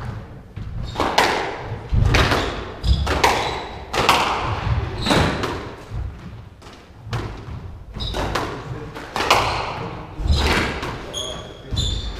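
Squash rally: the ball cracking off rackets and the court walls about once a second, each hit echoing in the enclosed court, with shoes squeaking on the wooden floor near the end.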